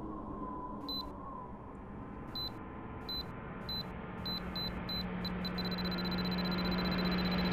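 Electronic beeps, single and high-pitched, slow at first and then faster and faster until they run together into one steady high tone, over a low drone that swells louder toward the end.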